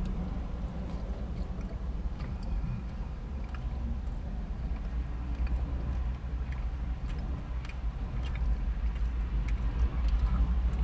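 A man biting into and chewing a fried chicken and glazed doughnut sandwich, with small scattered wet mouth clicks, over a steady low hum inside the car.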